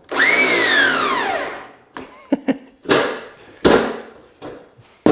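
A power screw gun's motor whines up and then winds down, falling in pitch as it coasts to a stop, followed by several sharp knocks and clatters.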